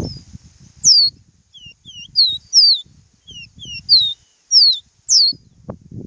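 Copper seedeater (caboclinho) singing: a phrase of clear, sharply down-slurred whistles, about six loud notes with softer, lower ones between them. A faint low rumble runs underneath.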